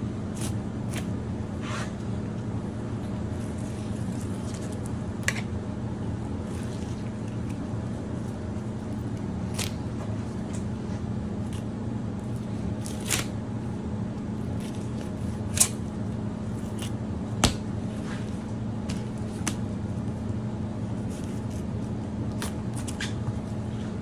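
Knife cutting and scraping through a grouper's flesh on a plastic cutting board, with wet squishing handling and scattered sharp clicks, over a steady low hum.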